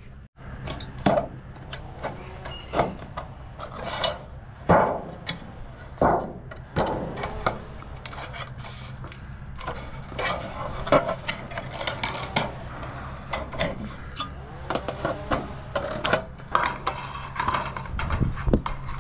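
Irregular knocks, taps and scraping as trim boards are handled and fitted, over a steady low hum.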